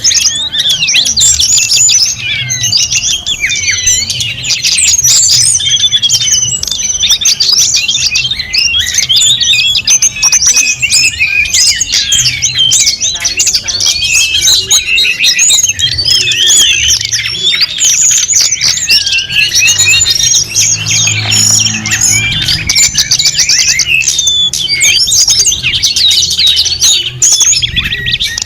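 A dense chorus of many birds chirping, trilling and calling over one another without a break.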